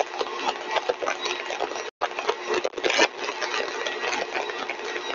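Motor-driven axial compressor test rig running at full design speed (7200 RPM): a steady mechanical whine with several held tones over a dense, rattling noise. The sound drops out for a split second about two seconds in.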